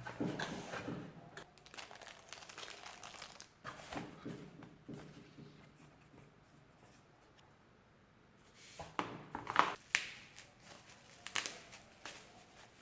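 Packaging being handled while unboxing a keyboard: irregular crinkling and rustling with scattered clicks and knocks. There is a quieter pause a little past the middle, then a louder spell of crinkling and knocks.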